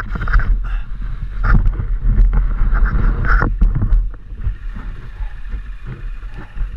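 GasGas enduro motorcycle engine running hard on a rough trail, with frequent sharp knocks. It quietens about four seconds in as the bike slows to a stop.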